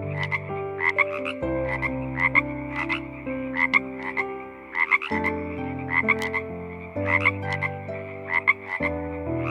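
An animal, most likely a frog, calling in short repeated croaks, about two a second, over soft background music with sustained chords.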